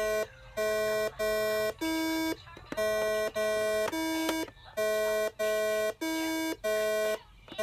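Simon electronic memory game sounding its button tones: a run of about eleven buzzy electronic beeps, each about half a second long, roughly two a second, mostly on one pitch and twice dropping to a lower tone.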